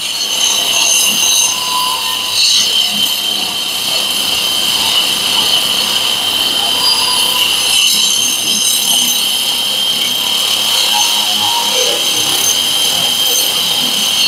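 Boda brushless wall chaser running under load with a steady high whine, its blades cutting a groove into a wall.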